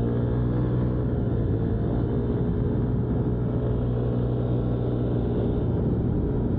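Honda Ruckus scooter's single-cylinder four-stroke engine running under way, its pitch rising slightly about a second in and then holding steady as the scooter cruises.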